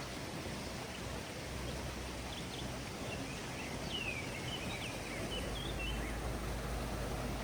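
Small songbirds chirping a scatter of short, high calls, among them a quick falling note about four seconds in, over a steady rushing hiss and low rumble.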